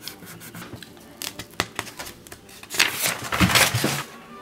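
A crayon scratching across paper in quick short strokes, then the paper sheet rustling louder for about a second near the end as it is handled.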